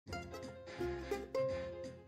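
Instrumental background music: a melody of plucked notes over a low bass line, with one note held in the second half.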